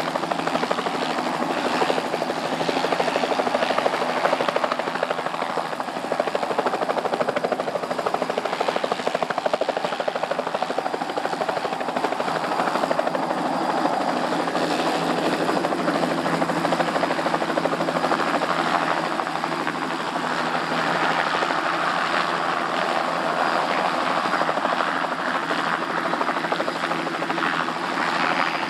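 Radio-controlled scale Bell 206 JetRanger model helicopter flying low, its engine and main and tail rotors running with a steady drone.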